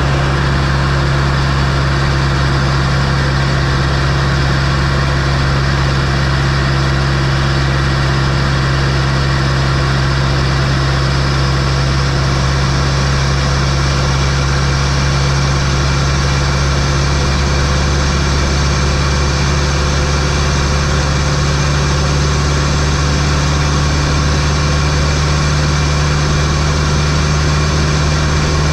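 Fiat Coupé 2.0 16V turbocharged four-cylinder engine idling steadily, heard close up from inside the engine bay.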